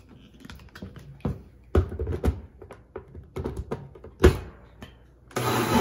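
Knocks and clunks of a plastic blender jar being lidded and handled, with a loud clunk about four seconds in as the jar is set onto the countertop blender's base. Near the end the blender motor starts and runs with a steady whir, puréeing tomatoes and chipotle peppers into a sauce.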